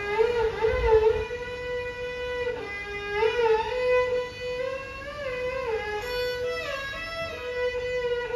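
Solo violin playing a slow Carnatic-style melody, one line of notes that slide and bend into one another.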